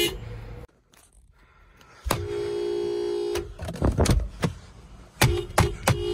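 Subaru car horn honking: a steady tone about two seconds in that lasts about a second and a half, then again a little after five seconds. Several sharp clicks come between the honks.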